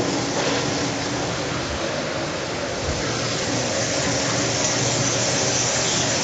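Hot oil in a commercial deep fryer sizzling and bubbling around soft-shell crab frying in a wire basket, a steady hiss that grows stronger about four and a half seconds in, over the steady run of the kitchen's exhaust hood fan.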